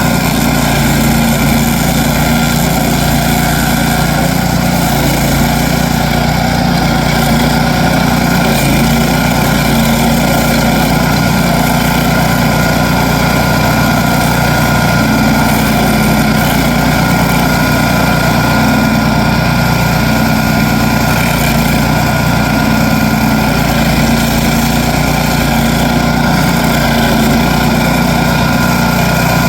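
Gitendo stump grinder's 13.5 hp Briggs and Stratton petrol engine running steadily and loud.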